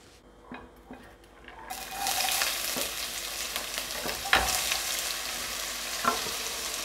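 Chopped onion dropping into hot oil in a frying pan and starting to sizzle about two seconds in, then a steady sizzle. A few sharp taps and scrapes of a knife pushing the onion off a wooden chopping board come over it.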